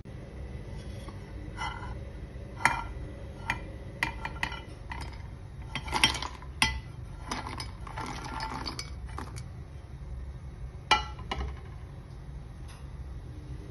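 Roasted almonds, cashews and walnuts tipped from a nonstick frying pan into a stainless-steel mixer-grinder jar: scattered clinks and clatters of nuts and metal. They are thickest between about six and nine seconds in, with a few single sharp knocks before and after.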